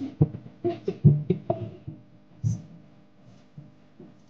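Music from a party sound system. It is louder with sharp beats in the first two seconds, then falls to faint held notes.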